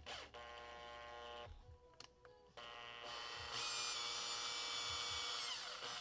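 Makita cordless drill turning a bottoming tap to thread a hole, its motor whining in trigger pulls: a short run, a pause, then a longer run that speeds up about three and a half seconds in and winds down near the end.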